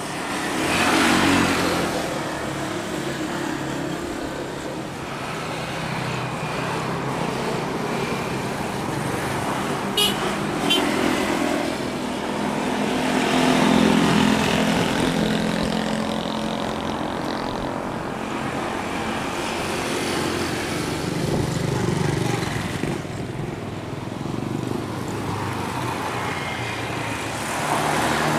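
Boeing 737-800 BBJ2's two CFM56-7 jet engines at low taxi thrust as the jet turns onto the runway, a steady distant rumble that swells and eases. Two short clicks about ten seconds in.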